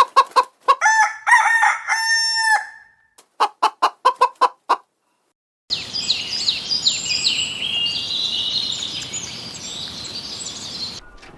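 Chickens clucking in quick runs, with a rooster crowing about a second in. After a short gap, a dense run of high-pitched, falling chirps follows.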